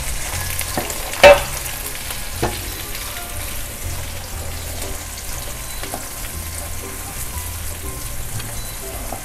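Chopped ginger and onion sizzling in hot oil in a steel wok while being stirred, with one sharp clank about a second in and a lighter one a second later.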